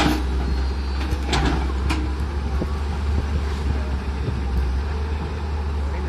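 Tata Hitachi 210 crawler excavator's diesel engine running with a steady low drone as the machine pushes against a tree. A few short, sharp cracks or knocks come at the start and around a second and a half in.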